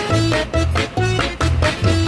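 Upbeat background music with a steady bass pulse, about two bass notes a second, and short plucked notes above it.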